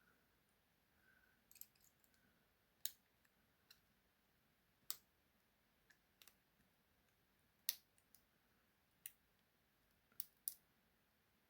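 Small, sharp metal clicks from a lock pick working the pins inside a small padlock's keyway: about ten separate ticks at uneven intervals.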